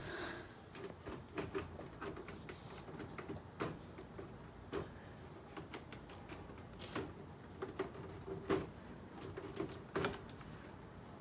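Faint, irregular light knocks and clicks, a few louder ones scattered through, over a soft low hum.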